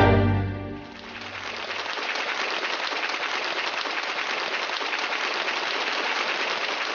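A musical chord dies away in the first second. Then comes a steady crackling hiss that swells slightly and holds to the end.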